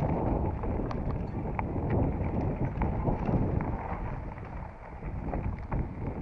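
Mountain bike being ridden on a dirt trail: wind rushing over the microphone, with irregular rattling clicks from the bike over rough ground.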